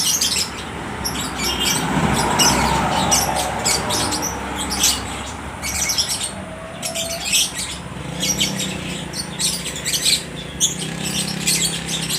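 Several lovebirds chirping rapidly and answering one another in a continuous stream of short, high, shrill calls. A low steady hum runs underneath.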